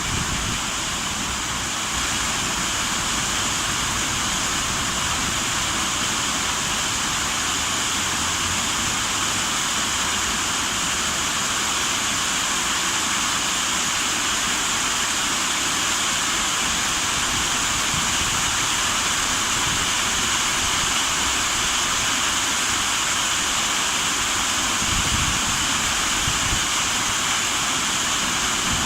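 Running water rushing steadily, with no break or change in level.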